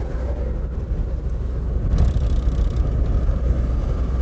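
Steady low drone of a diesel Iveco truck's engine and tyres heard inside the moving cab, with a single faint click about two seconds in.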